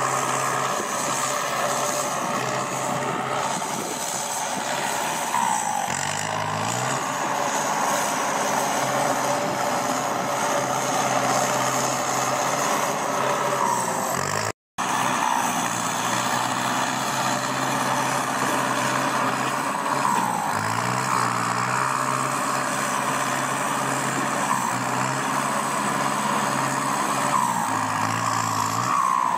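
Kubota M6240SUH tractor's turbo diesel engine running through an aftermarket exhaust, revved up briefly about four times from a steady idle, with a falling turbo whistle after the revs.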